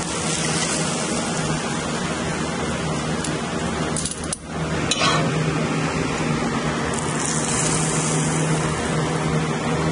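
Kitchen range hood fan running on high: a steady rushing noise with a low hum. A brief dip comes about four seconds in, and there are a few light clinks of metal utensils on a plate.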